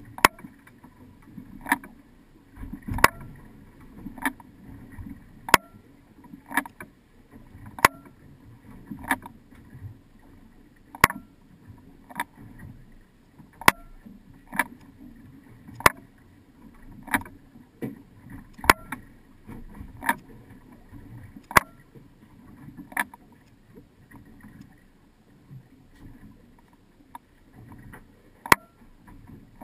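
A regular series of sharp clicks, about one a second, over a low steady hum on a boat.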